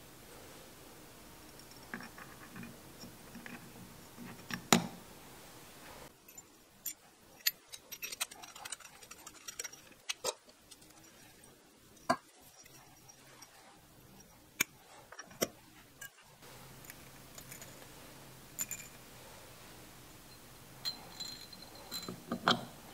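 Small metal parts of a Honda CX500 carburetor set clicking and clinking as slides, springs and covers are handled and fitted: scattered sharp clicks and taps, the loudest about five seconds in.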